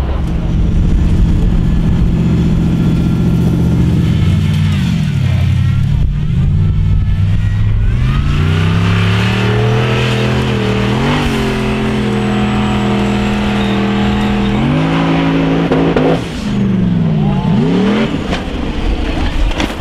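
Formula Offroad hill-climb buggy's engine revving hard under full throttle as it climbs a sand slope. The revs rise and fall, hold steady high through the middle, dip suddenly near the end and then swing quickly up and down as the buggy leaves the ground at the crest.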